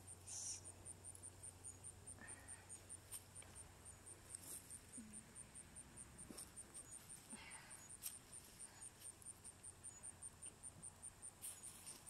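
A cricket chirping in a steady, even rhythm of high chirps, faint against near silence. Now and then come soft rustles of gloved hands digging through loose soil.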